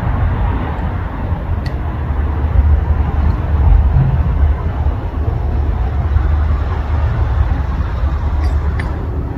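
Steady low rumbling noise, with a few faint clicks.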